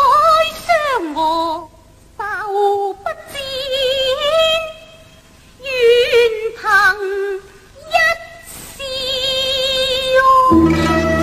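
Cantonese opera stylized spoken dialogue (koubai), the male and female roles calling to each other in short, heightened phrases with wavering, gliding pitch and pauses between. About ten and a half seconds in, the accompanying ensemble strikes up for the next sung section.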